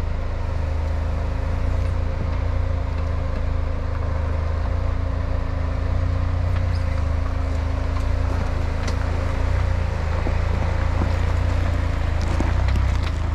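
A lifted Jeep Wrangler Rubicon's engine running with a steady low rumble. A faint steady hum over it stops about ten seconds in, and a few light knocks come near the end.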